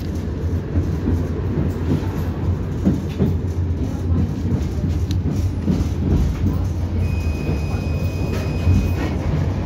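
Running noise inside a moving 71-623-02 tram: a steady low rumble from wheels on rail, with scattered knocks. A thin, steady high whine sounds for about two seconds near the end.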